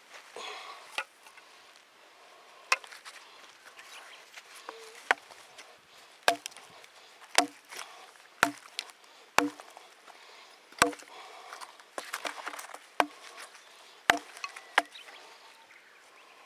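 Wood being chopped with a bladed hand tool: about a dozen sharp strikes, roughly one a second and somewhat irregular, with softer scraping between some of them.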